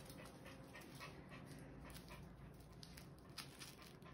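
Faint panting of a poodle held on a lap, with small scattered clicks and rustles from its harness being handled.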